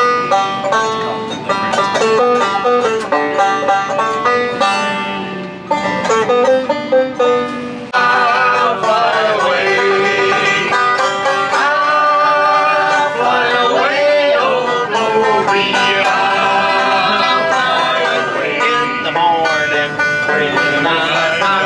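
Bluegrass banjo picking quick runs of plucked notes. About eight seconds in, the music turns fuller and more sustained, with bending melodic lines over the picking.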